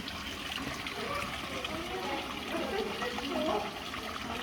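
Steady running, trickling water from a pond's water feature, with faint voices in the background.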